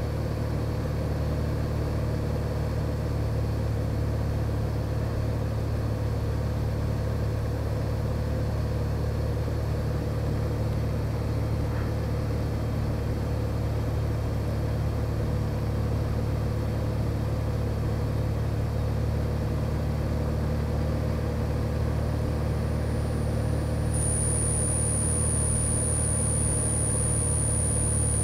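Cessna 182G Skylane's six-cylinder Continental O-470 engine and propeller droning steadily, heard inside the cockpit on the descent to land. About 24 s in, a steady, very high-pitched tone starts suddenly and runs on over the drone.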